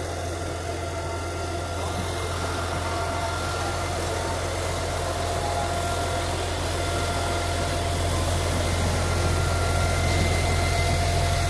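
An airport ground-support vehicle's engine idling steadily: a low drone with a steady whine over it, growing slowly louder.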